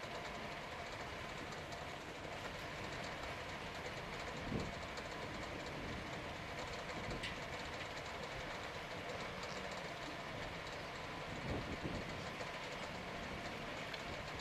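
Steady storm wind blowing over the microphone, a churning, even rush with rumble in the low end, with a couple of soft thumps about four and a half and eleven and a half seconds in.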